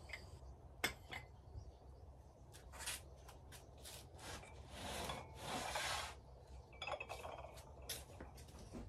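Faint handling of pottery and wooden ware boards: scattered light clicks and taps of ceramic pieces being set down, with soft scraping and rubbing about halfway through as pots and boards slide against each other, over a low steady hum.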